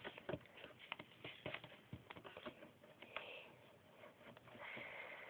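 Faint paper rustling and small scattered taps of a square sticky note being folded and pressed flat by fingers on a tabletop.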